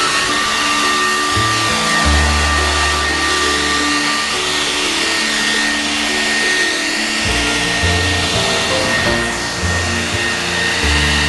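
Corded electric leaf blower running steadily: a rush of air with a constant high motor whine. Background music with a bass line plays along.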